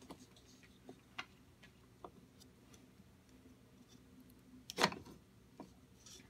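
Scattered light clicks and taps of small air engine parts being fitted by hand into the engine's hub, with one louder knock a little under five seconds in.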